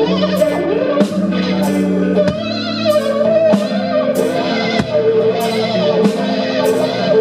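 Live band music in an instrumental passage: an electric guitar plays a wavering lead line through effects over bass and drums, with cymbal strikes about twice a second.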